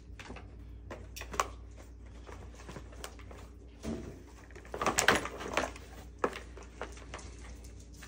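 Hard plastic parts of a Can-Am Maverick X3 front clip clicking and knocking as the side trim pieces are worked loose by hand. A quick cluster of sharp clicks about five seconds in is the loudest, with single clicks before and after.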